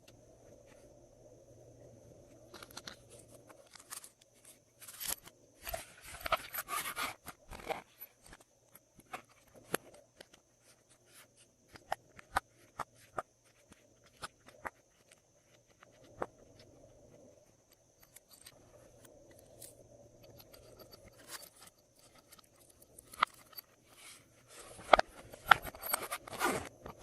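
Glossy slime being mixed and worked, giving sticky clicks and crackles that come in busier runs about five seconds in and again near the end.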